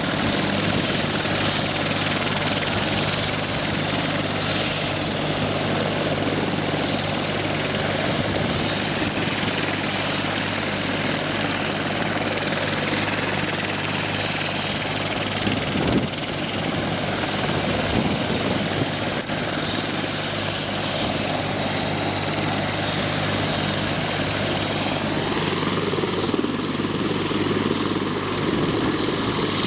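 Bell 412 twin-turbine helicopter running steadily on the ground with its rotor turning, doing final checks before take-off: a steady high turbine whine over the rotor's low drone.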